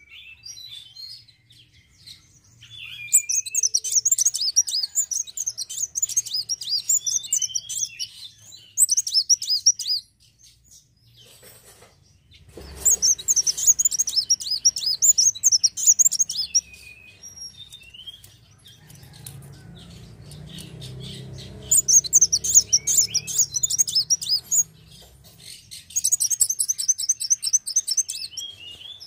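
Sunbird (kolibri wulung) singing in phrases of rapid, high twittering a few seconds long, with short pauses between.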